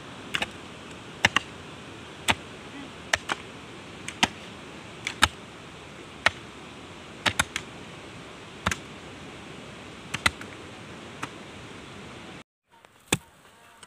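Hand hoe chopping into dry, stony hillside soil, a sharp knock about once a second, over a steady background hiss. Near the end the sound drops out briefly before one last knock.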